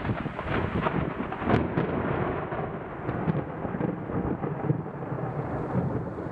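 Thunder rumbling steadily with crackling noise, picked up by a phone's microphone, with a sharp click about a second and a half in.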